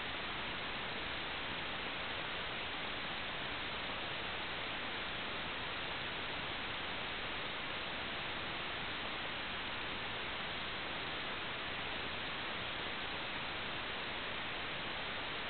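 Steady, unchanging static hiss with no other sound in it, the hiss of an analog video link's receiver picking up no audio.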